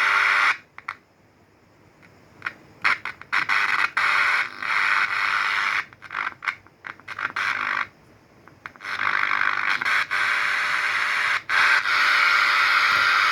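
Radio speaker hissing with static that cuts in and out repeatedly with crackles, then holds steady from about nine seconds in.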